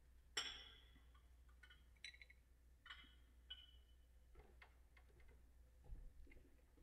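Faint clinks and taps of altar vessels being handled. The loudest comes about half a second in with a short ringing tone, and softer clicks follow, some ringing briefly, over a low steady hum.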